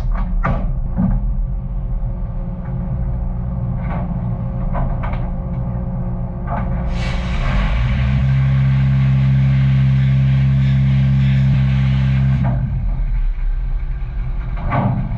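Machine-shop machinery running with a steady hum, with a few clicks and knocks in the first seconds. From about seven seconds to about twelve seconds a louder hiss with a deeper hum comes in, then it drops back.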